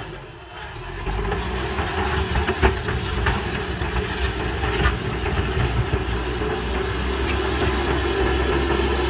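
JCB backhoe loader's diesel engine running steadily, with a few sharp knocks from about two and a half seconds in.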